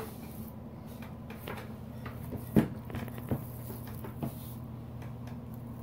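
Soft wet squelches and squishes of sticky gelatin slime being squeezed and kneaded by hand in a glass bowl, a few irregular ones with the loudest about two and a half seconds in, over a steady low hum.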